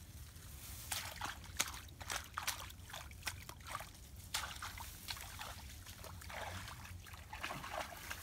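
Crackling, scraping rustle of hands rubbing charred, singed feathers off a dressed bird in a wicker basket, many small sharp crackles. Near the end water is poured over the bird in a metal basin.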